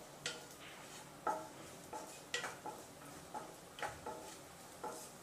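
Wooden spatula tapping and scraping against a nonstick frying pan while raisins are stirred in ghee: light, irregular ticks with a short ring, about two a second.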